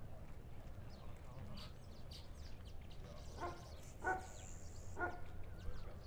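Three short pitched animal calls, each well under half a second, spaced less than a second apart in the second half, over a steady low hum.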